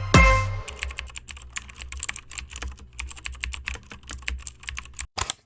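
Many quick, irregular clicks and taps over a low steady hum, following a last pitched music note that dies away in the first half-second.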